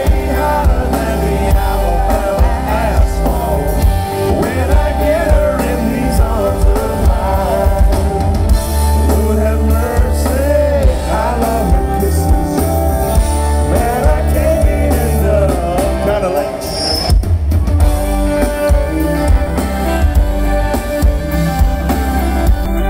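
Live country-rap band music, loud and continuous, with a heavy bass and drum beat under a wandering lead melody line, recorded from the crowd.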